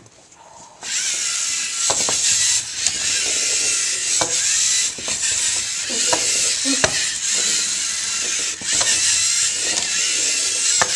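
Lego Mindstorms EV3 robots' motors and plastic gear trains whirring and grinding under load as the two sumo robots drive into and shove each other, starting about a second in. A few sharp clicks and knocks sound over it.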